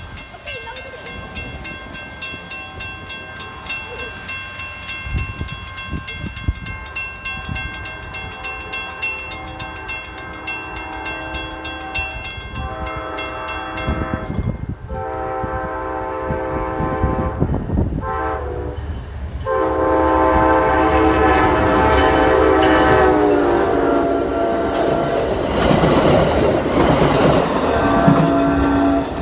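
Grade-crossing bell ringing steadily, then an Amtrak train's horn sounding the crossing signal from about halfway through: two long blasts, a short one, then a long one that drops in pitch as the locomotive passes. The train then goes by loudly with wheels clattering over the rail joints.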